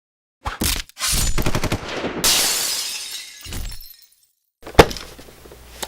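Sound effects: a rapid rattle like machine-gun fire, then a sudden crash that fades over about a second and a half, and a single sharp click near the end.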